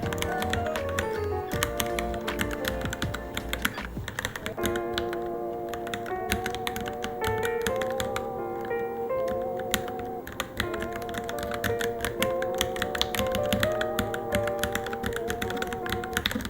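Fast, irregular keystrokes on a Varmilo Minilo keyboard during typing practice, a dense stream of clicks. Background music with a held, wavering melody plays under it.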